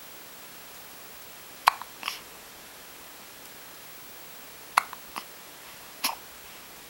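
Baby hiccuping: three short, sharp hiccups, the first two each followed a moment later by a softer second catch.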